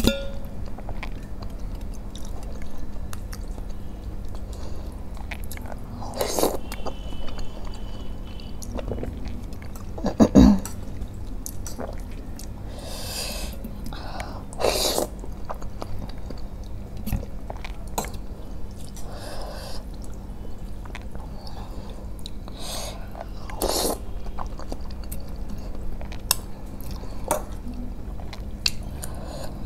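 Close-miked eating sounds of soupy masala Maggi noodles: wet slurps and chewing, with sharp clicks of a metal fork against a glass bowl. Several louder slurps come at intervals, the loudest about ten seconds in.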